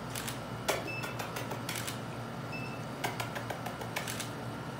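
Camera shutter clicking in quick runs of shots, with two short high beeps in between.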